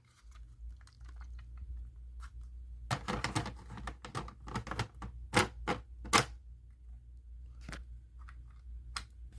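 Plastic smoke detector being handled and shaken: scattered sharp clicks and knocks, with a quick cluster about three seconds in and a few louder single clicks between five and six seconds.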